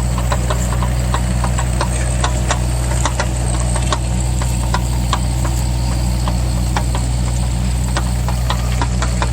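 Mini excavator engine running steadily, with frequent short clicks and rattles over it.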